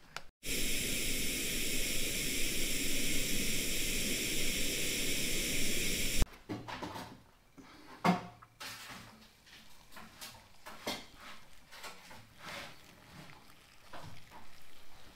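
Gas canister camping stove burner hissing steadily for about six seconds, then cutting off suddenly. After that come light clinks and knocks of a metal pot and fork over a wooden bowl, and boiling water is poured onto instant noodles near the end.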